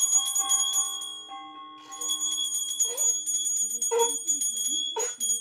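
Hand-held puja bell rung rapidly and continuously in fast, even strokes. It fades out about a second in and starts again about two seconds in, with a short lower sound about once a second over the second half.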